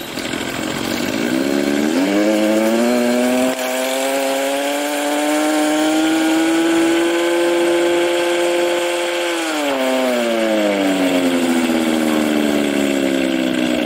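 Ola Electric scooter's artificial engine sound in Vintage mode, played through its speaker like a motorcycle. It rises in pitch as the throttle opens, holds steady, then falls away as the throttle eases about ten seconds in.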